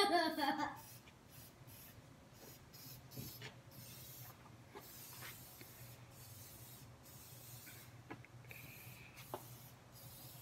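Aerosol spray-paint can hissing in a series of short sprays, faint and high-pitched, cutting on and off many times. A child's voice is heard briefly at the start.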